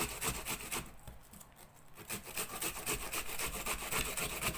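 An onion being grated on a hand grater: quick, even rasping strokes that thin out for about a second shortly after the start, then pick up again.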